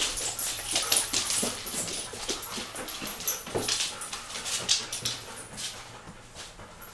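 Dogs whimpering, among a run of short irregular clicks from claws on a hardwood floor as they move about.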